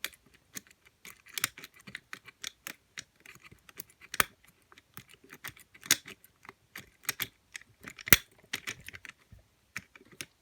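Lever lock being picked by overlifting: a tension tool and a small lifter clicking and scraping against the three levers inside. The clicks are quick and irregular, with a few sharper, louder ones every couple of seconds.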